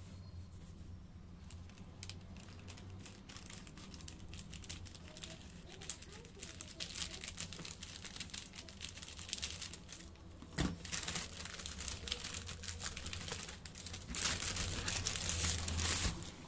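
Plastic (LDPE) courier mailer bag crinkling and rustling as it is cut open with scissors and a book is slid out of it, loudest near the end. One sharp click a little past the middle.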